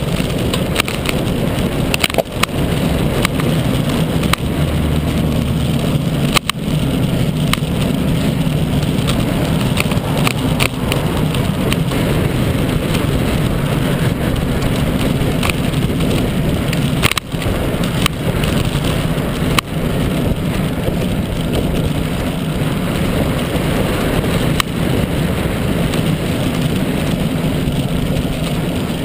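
Steady rush of wind over a bicycle-mounted camera's microphone, with tyre and road noise from riding at speed. A few sharp knocks, about 2, 6, 17 and 20 seconds in, as the mount jolts over bumps.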